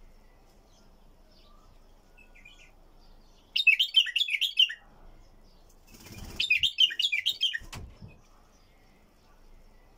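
Caged bulbul singing two short bursts of fast chirping phrases, the first about three and a half seconds in and the second about six seconds in. A flutter of wings and light knocks come around the second burst as the bird moves about its perch.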